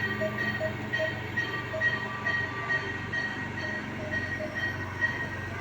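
Electronic alarm beeps from neonatal ICU equipment: short tones at two pitches, repeating two to three times a second and overlapping each other, over a steady machine hum.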